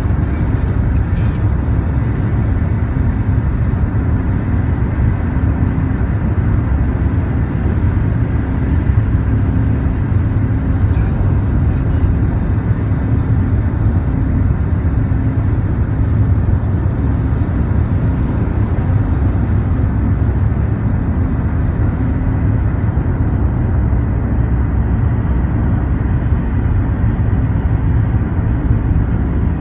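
Car driving at highway speed heard from inside the cabin: a steady low rumble of tyres, engine and wind, with a faint steady hum underneath.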